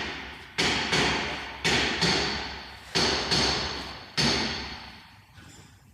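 A series of sharp knocks, about seven, mostly in pairs a third of a second apart, each ringing out for about half a second with a faint metallic ring, made while the car's front end is being worked by hand to check for play.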